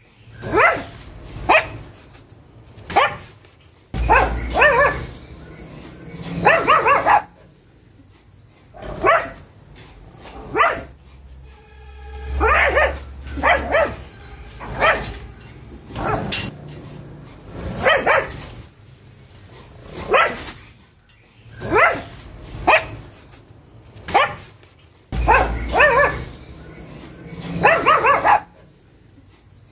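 Pug barking over and over: single sharp barks and short runs of two or three, about one every second or two.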